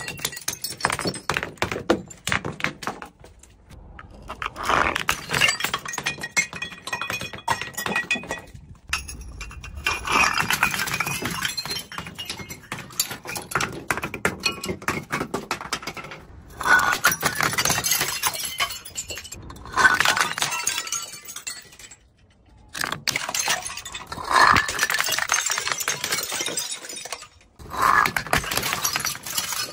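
Glass bottles smashing one after another on concrete stairs, each crash followed by shards clinking and tinkling as they scatter down the steps, repeating every few seconds.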